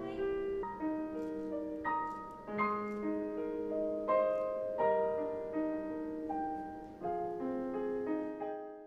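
Slow piano music, a gentle melody of held notes and chords, fading out near the end.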